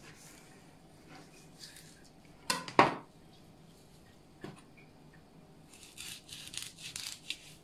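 Kitchen knife filleting a mackerel on a plastic cutting board: a loud double knock of the knife against the board about two and a half seconds in, a lighter tap, then a run of crisp scraping rasps near the end as the blade cuts through the fish.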